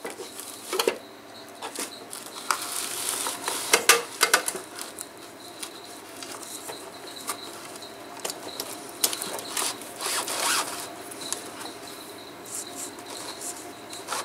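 Mercedes W123 heater core being pushed into its plastic heater housing: foam-lined edges scraping and rubbing against plastic, with scattered clicks and knocks, loudest about four seconds in.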